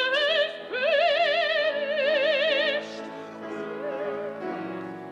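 Operatic singing: a high classical voice holds two long notes with wide vibrato, the second lasting about two seconds. After it, quieter accompaniment plays on.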